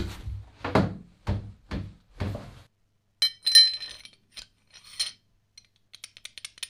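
A few dull metal knocks as the wrench body is worked in a steel bench vise. Then the bright clink and rattle of the antique adjustable wrench's steel movable jaw being slid into the T-slot of its body and handled, ending in light ticks.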